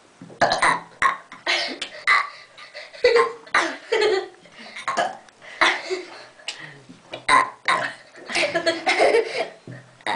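A mother and her daughter burping, one burp after another in quick succession.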